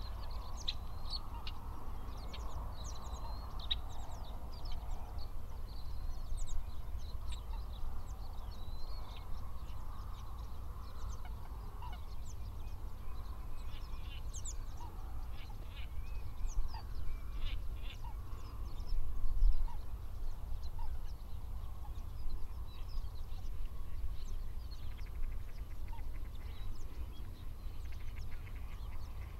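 A flock of geese calling: many short, high honks overlapping throughout, over a steady low rumble.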